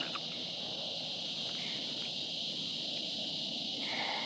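Evening insect chorus of crickets, a steady high-pitched trill.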